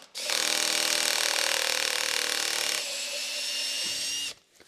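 Handheld cordless drill running a cutting bit through a drilled hole in a thick acrylic block, to smooth the rough bore. It stops briefly at the start, runs steadily again with a change in tone about three seconds in, then stops near the end.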